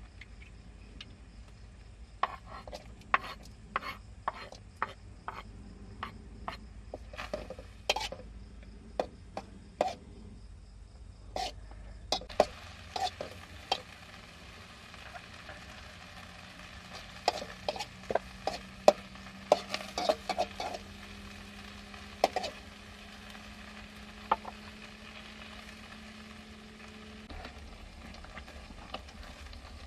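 A utensil stirring and tapping in a cooking pot, giving irregular sharp clinks and knocks.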